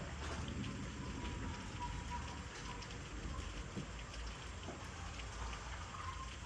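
Steady rain falling, with scattered short ticks of individual drops hitting close by.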